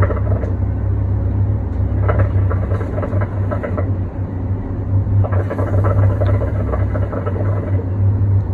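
Water in a hookah base bubbling as smoke is drawn through the hose, in pulls of about two seconds each, a rapid run of gurgles each time. A steady low hum runs underneath.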